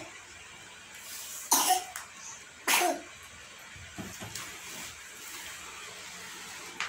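A person coughing twice, about a second apart, while a large cardboard TV box is shifted about with a few soft knocks.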